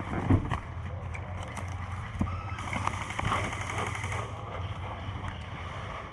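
Airsoft gunfire: scattered sharp pops of airsoft guns going off around the player, the loudest shortly after the start and a denser patch in the middle, over a steady low hum.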